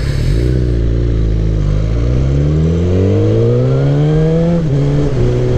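Suzuki GSX-R 1000 inline-four sportbike engine under acceleration, its pitch rising steadily for about three seconds and then dropping suddenly near the end at an upshift, after which it runs steady.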